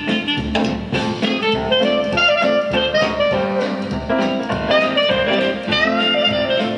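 Music from a vinyl test record playing on a Gradiente S-126 belt-drive turntable, heard through loudspeakers: band music with a steady beat of about two pulses a second.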